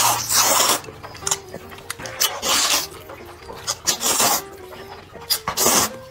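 A person slurping noodles loudly, four long airy slurps about every second and a half.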